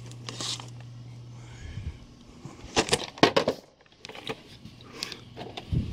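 A boxed Funko Pop vinyl figure falling and landing among other boxes: a quick cluster of knocks and clicks from its cardboard-and-plastic window box about three seconds in, with a few lighter knocks near the end. A low steady hum cuts off about two seconds in.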